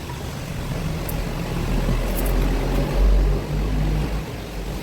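An engine running steadily with a low hum, swelling louder for a moment about three seconds in.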